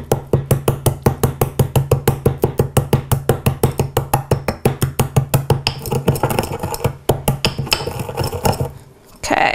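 Peppercorns being ground with a pestle in a small mortar: rapid, even pounding at about five or six strikes a second, stopping shortly before the end.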